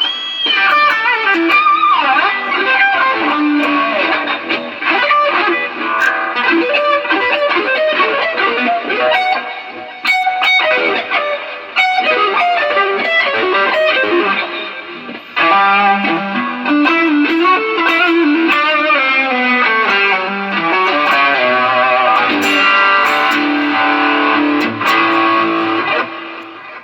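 Electric guitar played through a Line 6 Helix LT multi-effects unit, with distorted, effected tones and notes that slide and bend in pitch, stopping just before the end. It is a sound test: the unit is passing signal again after its rain-soaked boards were cleaned.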